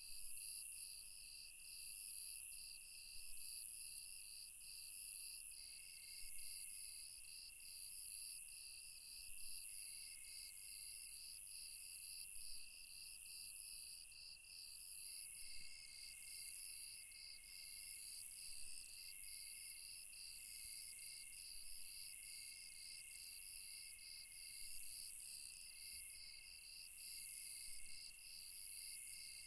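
Night insects chirping in a continuous chorus. A rapid pulsing trill runs under a very high shrill layer that swells and fades about once a second, with steady high tones that start and stop every few seconds.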